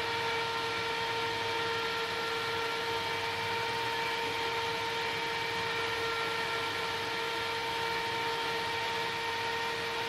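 Computer CPU cooling fan running steadily: an even whirr with a steady whine.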